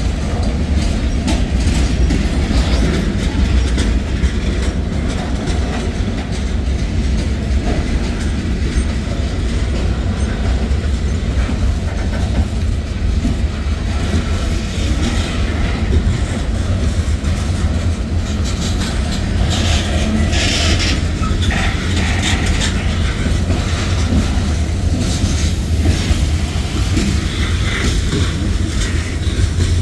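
Freight train cars, mostly covered hoppers, rolling past: a steady heavy rumble of steel wheels on the rails, with the clickety-clack of the wheel trucks crossing rail joints.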